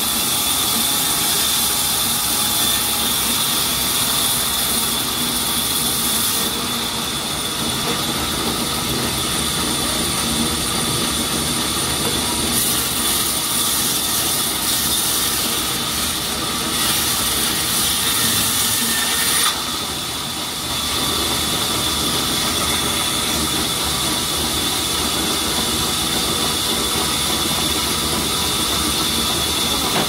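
Large vertical sawmill band saw running and cutting lengthwise through a crooked mahogany log: a steady, loud machine noise with a high ringing tone. The sound shifts a few times as the log is fed, with a brief dip about two-thirds through.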